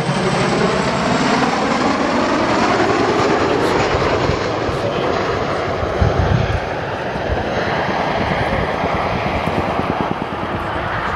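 Boeing CH-47 Chinook tandem-rotor helicopter flying past, a loud steady din of rotor and turbine noise that eases a little after the middle. There is a brief low thump about six seconds in.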